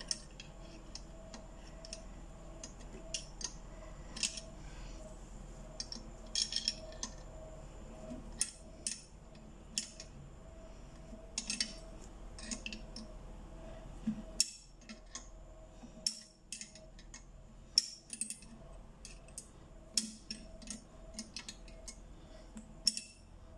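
Metal spanner clicking and clinking against the hub screw of a treadle sewing machine's flywheel in irregular sharp ticks as the screw is worked loose to take out the worn bearing.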